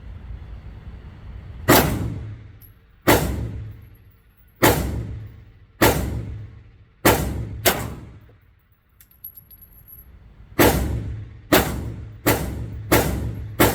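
9mm pistol shots ringing off the walls of an indoor shooting range, about eleven in all: six single shots about a second or more apart, a pause of about three seconds, then a quicker string of five.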